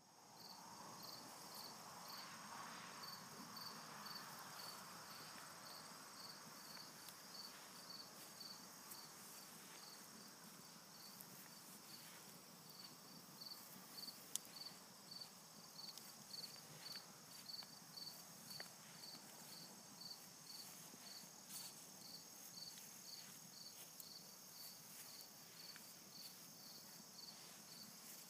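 Crickets chirping quietly in a regular rhythm, about one and a half chirps a second, over a continuous high insect trill, with a few faint clicks.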